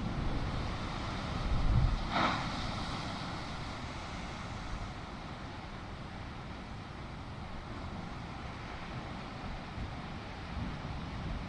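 Sea waves washing on the shore with wind buffeting the microphone; a wave surges about two seconds in, then a steady wash.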